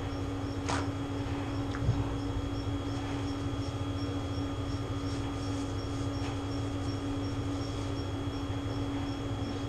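A paper napkin rustles briefly about a second in as it wipes a mouth. Under it runs a steady background hum.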